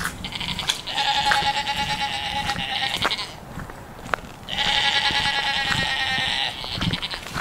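Goat bleating: two long, steady-pitched, quavering bleats, the second beginning about halfway through.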